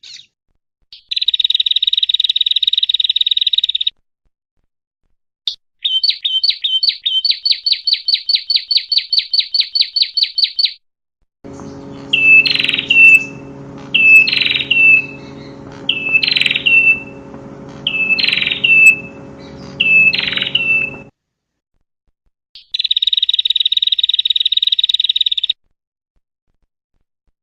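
Female prinia (prenjak) calling in several bursts separated by dead silence: a dense, buzzy trill, then a fast run of repeated sharp notes at about four a second, then five separate downslurred calls about two seconds apart over a low steady hum, and the buzzy trill once more near the end.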